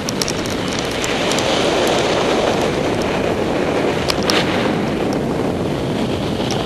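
Steady rush of air buffeting the camera's microphone in a paraglider's forward flight, with a few light clicks near the start and about four seconds in.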